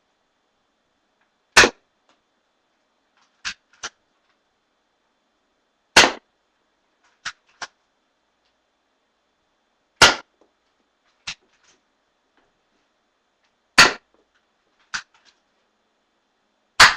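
Glock P.698 spring-powered BB pistol firing five single shots, each a sharp crack, about four seconds apart. Between the shots come one or two much lighter clicks.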